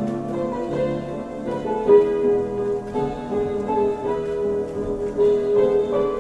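Instrumental waltz music: a melody of held notes over a lower accompaniment, changing note every half second or so.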